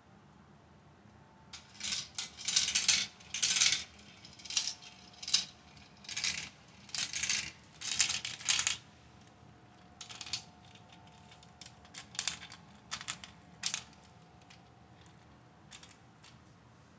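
Marbles rattling and clicking as they roll down a marble run, in a busy series of short clattering runs for several seconds, then a few scattered clicks.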